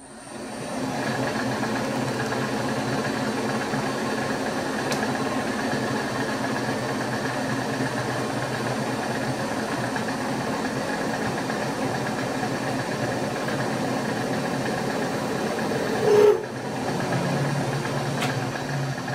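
Milling machine spindle running steadily while a centre drill cuts a starting hole in a small block held in the vise. About sixteen seconds in there is a short, louder tone, and the machine's sound then settles lower.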